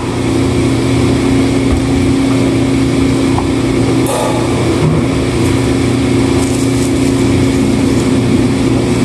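Steady mechanical hum of a restaurant's ventilation system running, with a constant low drone.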